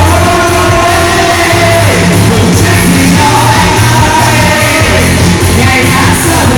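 A song performed live: singing voices over loud band accompaniment with strong bass.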